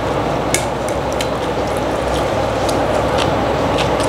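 A person eating from a bowl with chopsticks and a spoon: scattered light clicks of the utensils against the bowl, over a steady background hum.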